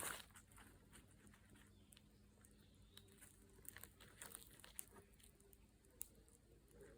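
Near silence with the faint, scattered crackles and pops of a wood bonfire.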